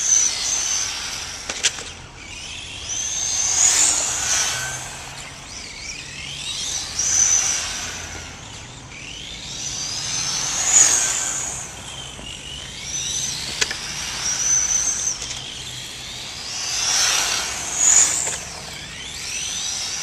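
Radio-controlled rally cars racing on asphalt: their motors give a high-pitched whine that glides up and down as the cars accelerate, brake and pass, swelling and fading every three to four seconds over tyre noise.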